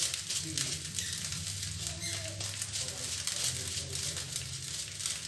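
Vegetable fried rice sizzling with a fine, steady crackle in a kadai on a gas flame as ground black pepper is sprinkled over it.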